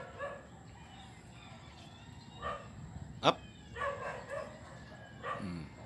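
A large dog giving short excited barks, four or five of them spaced a second or so apart, as it is urged to jump up.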